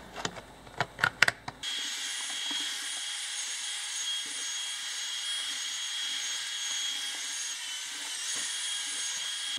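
A few knocks, then about a second and a half in an electric drill with a mixing paddle starts and runs steadily, stirring sand-and-cement mortar in a bucket.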